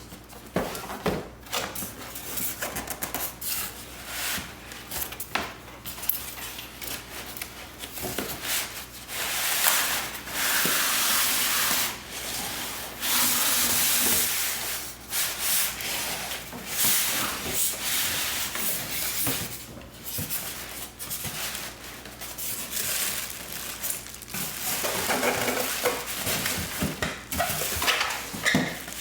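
Cardboard and packing material rubbing, scraping and rustling as an espresso machine and its accessories are unpacked from the box, with longer, louder scrapes about ten and fourteen seconds in.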